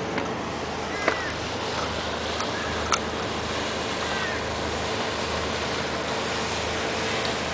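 Inboard engine of a 56-foot schooner running steadily with the transmission in gear, driving the propeller, with water washing along the hull. A couple of sharp clicks about one and three seconds in.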